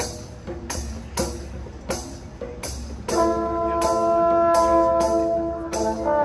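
Marching band playing a field show: scattered percussion strikes, then the brass section comes in about three seconds in with a loud, held chord.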